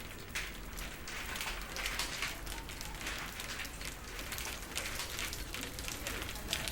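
Rain falling on a surface: a steady hiss thick with many small ticks of drops.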